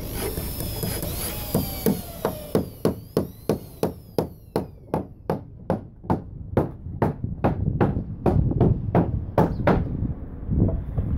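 A hammer driving nails into the wooden planking of a dhow hull: a steady run of sharp strikes, about three a second. A faint whine falls in pitch during the first few seconds.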